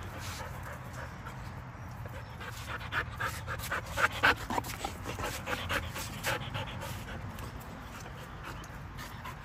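Belgian Malinois dog panting close by, with a run of short, sharper sounds in the middle.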